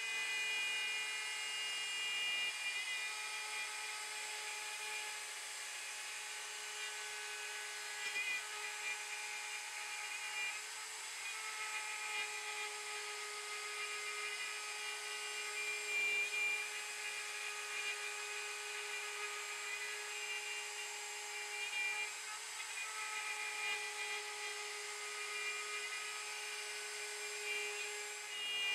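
CNC router spindle whining steadily as a 1/4-inch flat end mill cuts the profile through 3/4-inch bamboo plywood, with small rises and falls in the cutting noise.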